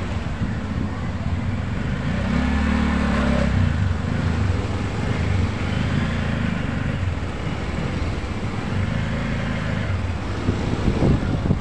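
Motor scooter ride at low speed in street traffic: a steady low rumble of the scooter's engine and road noise, with other vehicles close by and a few louder bumps near the end.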